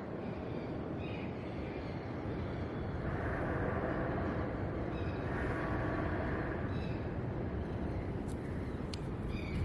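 Steady rush of wind and surf on a beach, swelling a little midway, with a few short high chirps every couple of seconds.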